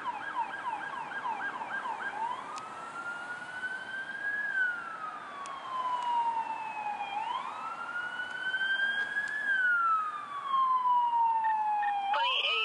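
An emergency vehicle's electronic siren. It runs in a fast yelp for about the first two seconds, then switches to a slow wail that rises and falls twice and starts rising again near the end.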